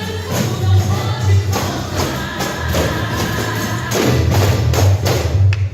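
Gospel worship song with singing, tambourine jingles and a heavy bass beat, cutting off near the end.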